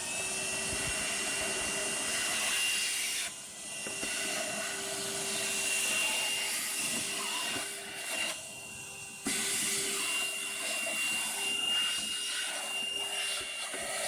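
HoLife cordless handheld wet/dry vacuum running and sucking up sawdust, its motor giving a steady high whine over a rush of air. The sound drops briefly twice, about three seconds in and again about eight seconds in.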